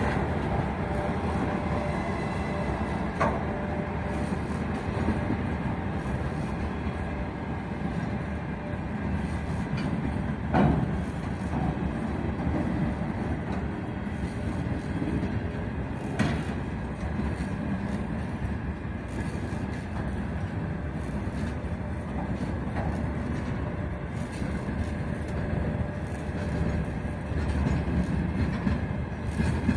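Open-top freight gondola wagons of a long mixed freight train rolling past as the train gathers speed: a steady rumble of steel wheels on rail, with a few sharp knocks, the loudest about ten seconds in.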